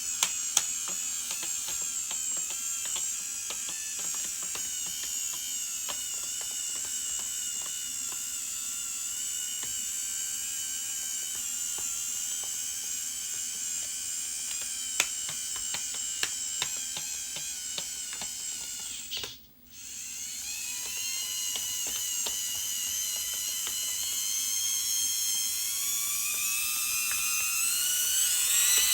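Small electric motors and gearboxes of a radio-controlled construction model whining with a wavering pitch, with many light clicks and ticks. The whine stops briefly about two-thirds of the way through, then winds back up, its pitch climbing near the end.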